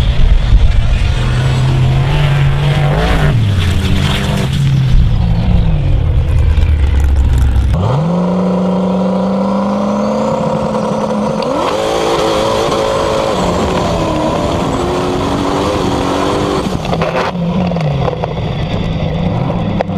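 Formula offroad racing cars' engines revving hard on a dirt drag run, the pitch climbing and dropping again and again. About eight seconds in the sound changes abruptly to a closer engine note.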